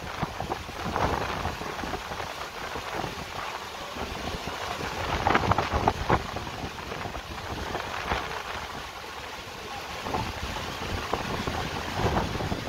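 Heavy rain and strong gusting wind of a thunderstorm, the wind buffeting the microphone; the gusts swell and fade, loudest about five to six seconds in.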